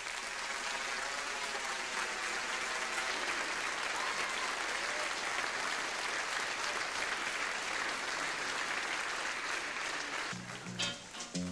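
Theatre audience applauding steadily after a song. Near the end the applause gives way to a band tune with a clear bass line.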